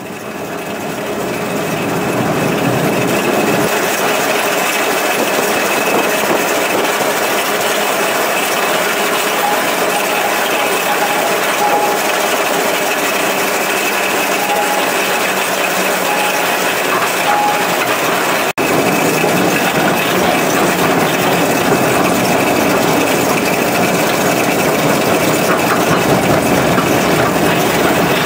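Billard T75 diesel locotracteur running steadily, heard from inside its cab as it hauls a narrow-gauge train along the track. The sound fades in at the start and dips briefly at an edit about two-thirds through.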